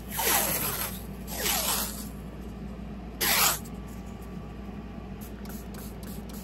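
Masking tape pulled off its roll in strips: three rasping pulls in the first four seconds, the first two sliding down in pitch and the third shorter.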